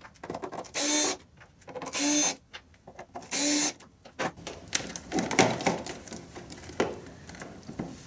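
Cordless power driver whirring in three short bursts about a second apart, backing out the screws of a generator's outlet panel. After that, clinks and rattles as the loosened panel and screws are handled.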